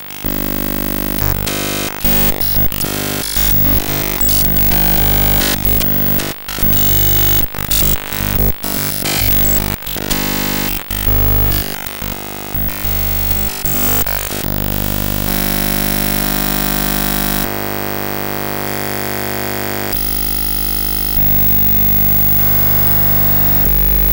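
Video signal from a circuit-bent Blaupunkt DVM-1000 video mixer played as sound: a harsh, glitchy electronic buzz and noise. For about the first fourteen seconds it chops and switches rapidly and irregularly. After that it settles into steady buzzing tones that change abruptly every couple of seconds.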